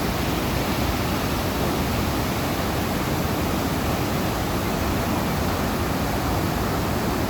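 Steady rush of whitewater in a creek rapid, an even, unbroken noise of churning water.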